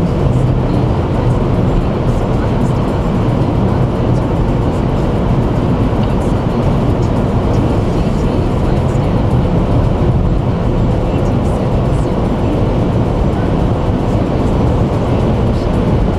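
Steady road and engine noise heard inside the cabin of a car cruising on a highway.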